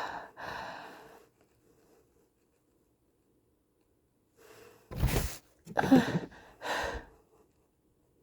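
A woman's two sharp, gasping breaths in, then about five seconds in three quick, forceful bursts of breath from her nose and throat, the first the strongest, as she tries to force out a sneeze.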